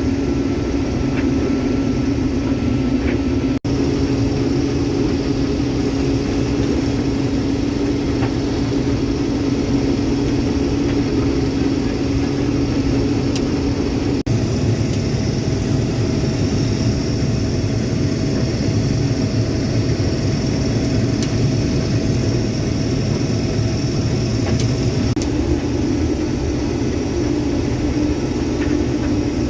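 Case IH 2388 combine running steadily under load while harvesting soybeans, heard from the operator's seat as a constant hum and rumble. It dips out briefly twice, and its tone shifts slightly after the second dip.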